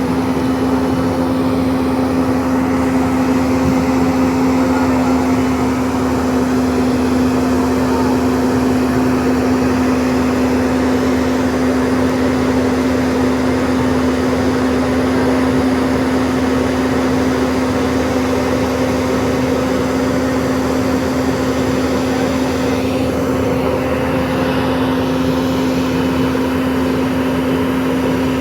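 Tracked excavator's diesel engine running at a steady speed, a constant drone with no revs rising or falling.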